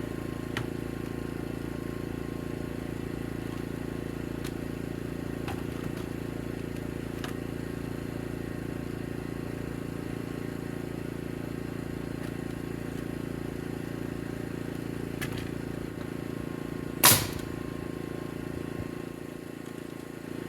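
A pneumatic framing nail gun fires once, a single sharp crack near the end, over a steady low hum, with a few faint knocks earlier on.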